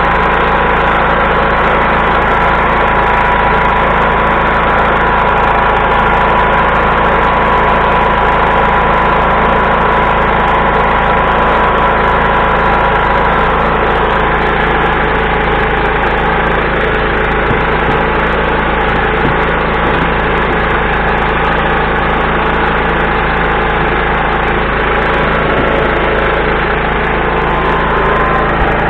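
Portable gasoline generator running steadily at a constant speed.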